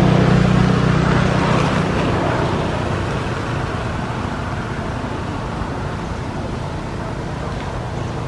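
A low engine hum that fades away over the first couple of seconds, then a steady rushing noise.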